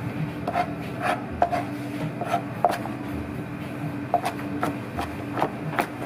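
Large kitchen knife chopping and mincing a pile of raw shallots, garlic, chilli and lemongrass on a cutting board, with sharp knocks of the blade on the board about two to three times a second and a short pause in the middle.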